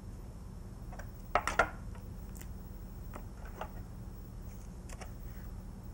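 A knife cutting through a chicken wing joint on a plastic cutting board: a few soft clicks and knocks of the blade, the two loudest about a second and a half in, over a low steady hum.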